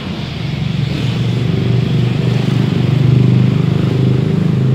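A motor vehicle's engine running close by, a low, steady drone that grows louder over the first few seconds and then holds.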